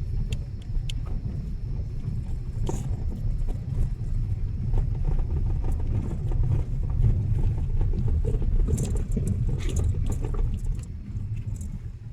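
Vehicle driving over a rough unpaved road: a steady low rumble with scattered rattles and knocks.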